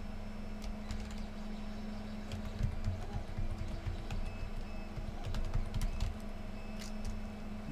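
Typing on a computer keyboard: irregular key clicks over a steady low hum.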